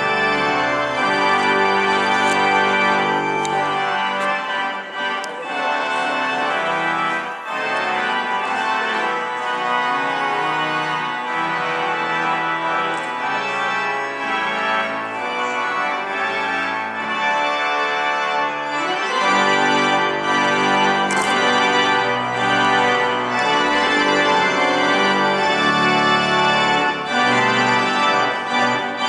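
Organ music: slow, sustained chords changing every second or so, softer through the middle and swelling with fuller bass notes about two-thirds of the way through.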